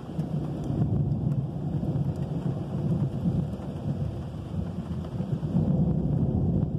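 Thunder rolling: a long, low rumble that swells up suddenly at the start and keeps rumbling unevenly without stopping.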